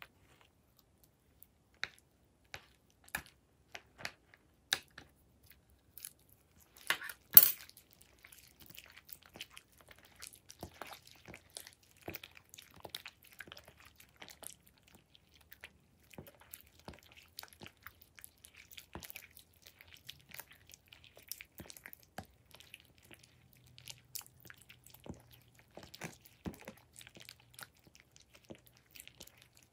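Glossy slime being kneaded and squeezed by hand, giving sticky wet clicks and pops. The clicks are sparse at first, with one loud pop about seven seconds in, then turn into a steady crackle of small clicks.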